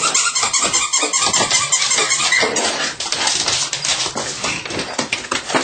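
Belgian Malinois puppy mouthing and batting an empty plastic bottle on a hard floor: continuous crackling and crinkling of thin plastic with small clattering knocks.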